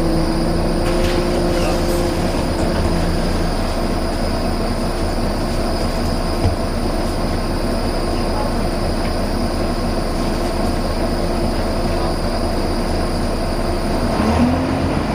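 Volvo B9TL double-decker bus running with a loud whine from its drivetrain over a steady engine and road rumble. The whine holds a steady pitch for the first few seconds and fades, then comes back near the end, rising and falling in pitch.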